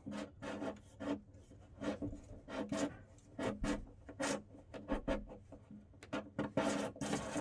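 Repeated short rasping, rubbing strokes, roughly two to three a second and somewhat irregular, from hand work on a fitting.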